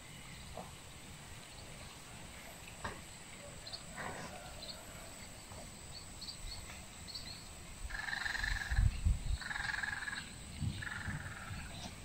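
Frogs croaking in a rice paddy: three calls about a second long each near the end, over a faint background of small chirps. A low rumble sounds under the first two calls.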